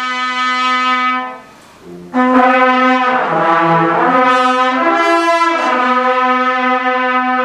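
Brass instruments playing long held notes. One note swells and breaks off about a second in, and after a short gap more sustained notes follow, with a lower part sounding under them in the middle.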